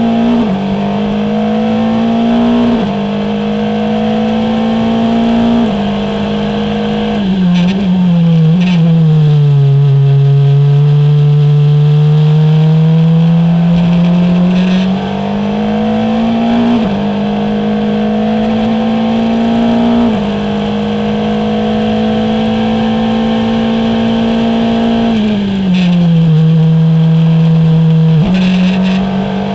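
Formula Renault 2.0 race car's four-cylinder engine heard from onboard. The pitch climbs through the gears, with a quick step at each shift. About seven seconds in it drops through a run of downshifts to a low pitch for a slow corner, then climbs back up through the gears. There is another downshift near the end.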